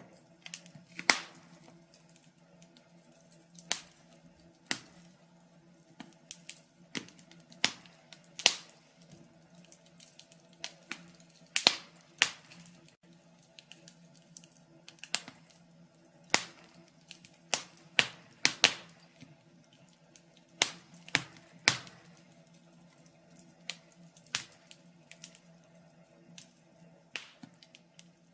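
Wood log fire crackling: irregular sharp pops and snaps, some single and some in quick clusters, over a faint steady low hum.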